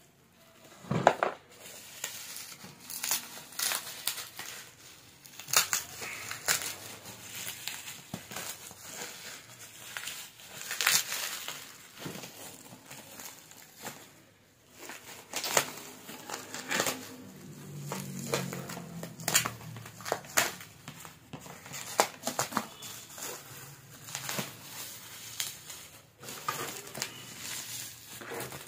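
Bubble wrap crinkling and crackling as it is handled and pulled off a boxed power tool, in irregular sharp crackles throughout.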